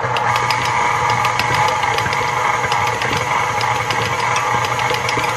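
KitchenAid Ultra Power Plus stand mixer running steadily on a dough hook, kneading sticky bread dough as softened butter is worked in. It makes a steady motor drone, with small irregular clicks over it.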